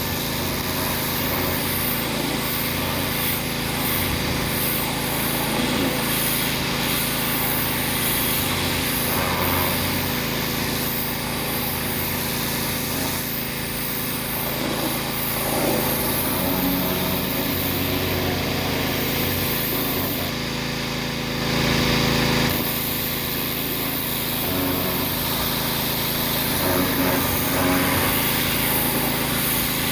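Small gasoline engine of a pressure washer running steadily, with the hiss of the spray over it; the sound shifts briefly about two-thirds of the way through.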